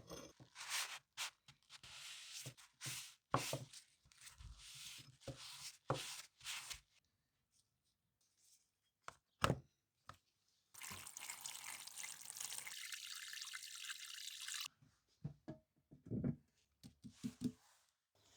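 Hands working on a hatchet: a run of sharp knocks and clicks, one louder click near the middle, then a steady hiss lasting about four seconds, then a few more knocks.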